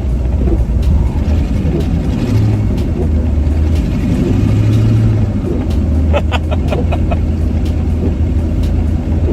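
Twin-turbo LS V8 in a Mazda RX8 running under light load while driving, heard from inside the car, its low engine note rising and easing with the throttle. A short rattle of clicks comes about six seconds in.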